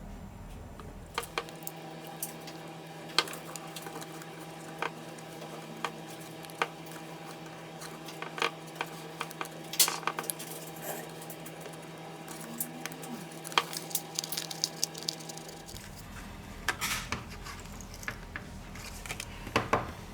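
Small hand tools clicking and tapping against a phone's hard parts and the work surface: dozens of sharp, light clicks at irregular intervals. Underneath, a steady electrical hum starts about a second in and stops around fifteen seconds.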